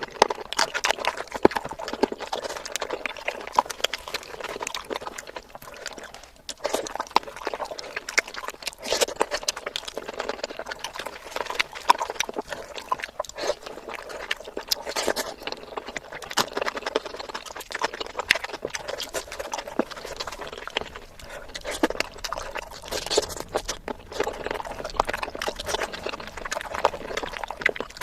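Close-miked wet chewing and lip-smacking of someone eating, a steady stream of sticky clicks and smacks without pause.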